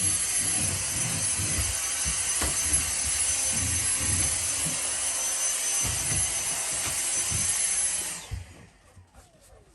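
Vacuum cleaner running with a steady high whine, switched off about eight seconds in, its motor winding down with a falling pitch.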